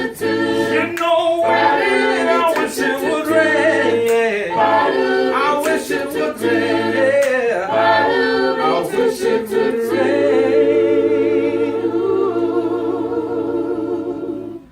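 A cappella gospel vocal group singing in close harmony without instruments, drawing out the final phrase of the song and ending on one long held chord that stops near the end.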